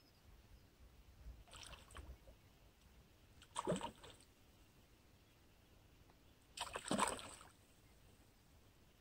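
Objects tossed from the shore splashing into a lake, two clear splashes, the second one louder, with a fainter one before them.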